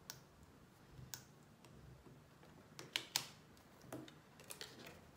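Craft knife cutting printed paper on a cutting mat: faint, irregular sharp clicks and light scratches as the blade goes through the paper and taps the mat.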